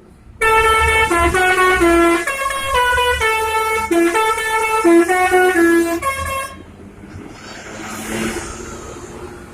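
Bus telolet horn: a multi-tone air horn playing a quick tune of changing notes for about six seconds, then stopping. After it comes the rumble of the bus's engine and road noise, swelling and fading.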